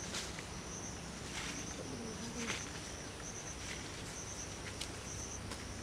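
A high-pitched insect trill, pulsing steadily throughout, with a few faint crackles of leaves and twigs rustling in the undergrowth.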